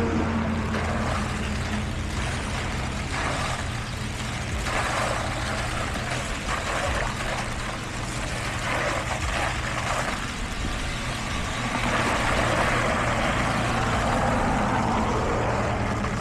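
Heavy diesel construction machinery running steadily, with a noisy rush above the engine that swells and fades every second or two.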